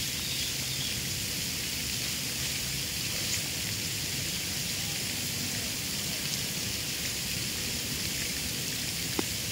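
Steady splashing of a water fountain, an even rushing hiss, with a few faint bird chirps.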